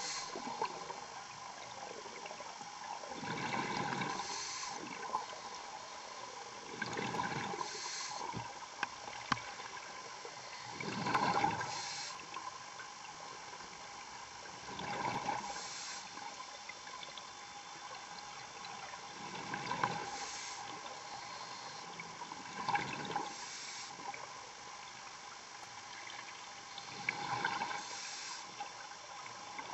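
Scuba diver breathing underwater through a regulator: a rush of exhaled bubbles about every four seconds over a steady hiss.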